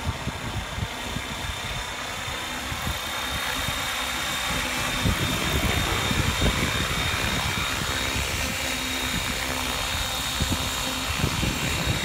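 Align T-Rex 550 radio-controlled helicopter flying, a steady high whine from its motor and rotor. It grows louder about five seconds in as the helicopter descends and comes in close to land.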